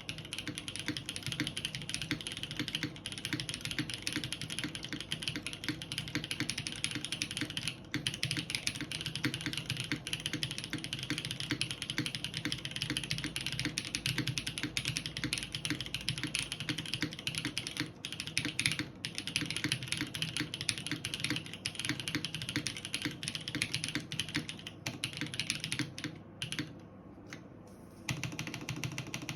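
JJW Cloudline mechanical keyboard being typed on fast and continuously. It has O-ring-mounted polypropylene plate, lubed JWK Tungsten linear switches and GMK keycaps. There are a few brief breaks, and a pause of about two seconds near the end.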